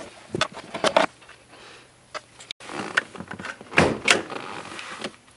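Clicks and knocks of handling tools and plastic trim in a BMW 3 Series: a screwdriver lifted from the trunk's foam tool kit tray, then the hood release lever pulled. The sharpest knocks come about four seconds in.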